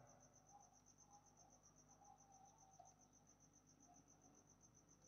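Near silence: faint room tone with a steady, high-pitched, rapidly pulsing tone.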